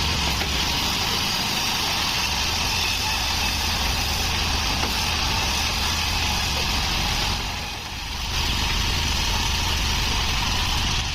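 Band sawmill running steadily: a deep machine drone with a broad hiss above it, easing off briefly about eight seconds in.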